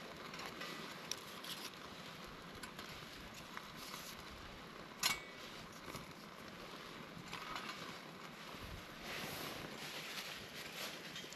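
Wood fire crackling faintly in a small folding steel wood stove, with scattered small pops and one sharp click about five seconds in, as sticks are fed into it.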